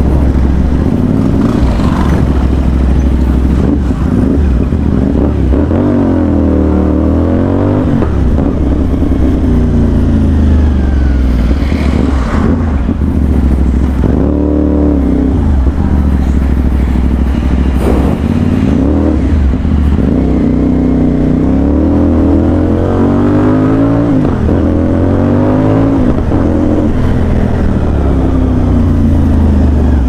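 CFMOTO 450NK's parallel-twin engine with a 270° crank, running loud through dual SC Project mufflers. It is revved up and eased off again and again, its pitch rising and falling every few seconds.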